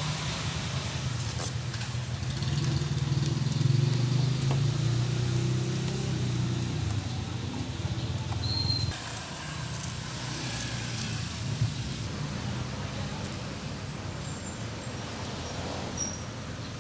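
GY6 scooter engine running with a steady hum, which drops off sharply about nine seconds in, leaving a quieter low rumble.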